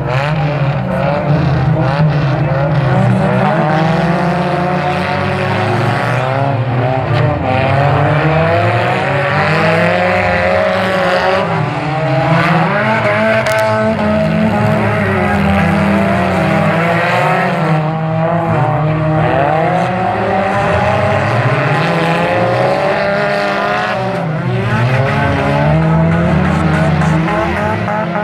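Several old street cars racing on a dirt oval, their engines running hard and rising and falling in pitch as they accelerate and lift through the turns. There is one sharp knock about halfway through.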